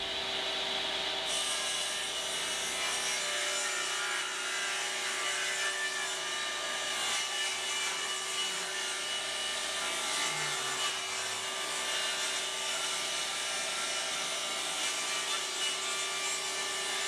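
Table saw running and ripping a 3/8-inch-thick walnut board lengthwise along the fence, a steady whine with the blade cutting through the wood.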